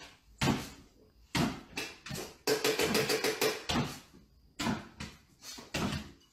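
A series of short knocks and clatters, about a dozen spread out irregularly, with a quick rattle about two and a half seconds in that lasts about a second.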